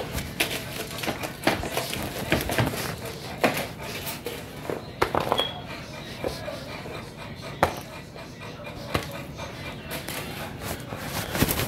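Irregular light clicks and knocks, a few a second at times, over a low hum.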